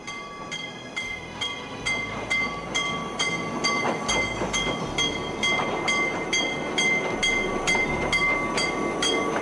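Narrow-gauge steam locomotive with its train passing close by, a regular beat of about three strokes a second with a ringing tone on each stroke.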